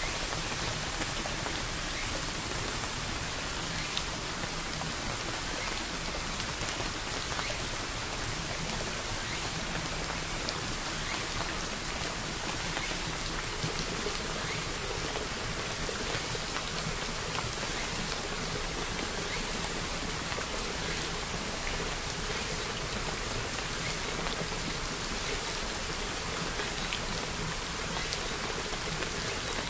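A steady, even hiss like falling rain, with faint light ticks scattered through it.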